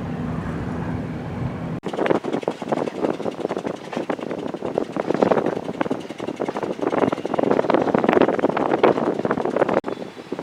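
A boat engine's steady drone, which cuts off abruptly about two seconds in. Loud gusty wind buffeting on the microphone follows, and it drops back sharply near the end.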